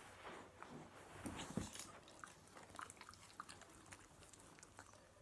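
Faint sounds of a small terrier taking and chewing a treat: scattered small clicks, with two short low sounds about a second and a half in.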